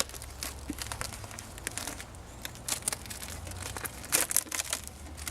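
Plastic wrapping being peeled and crinkled off a new taillight: irregular crackles, with a louder bout of crinkling about four seconds in.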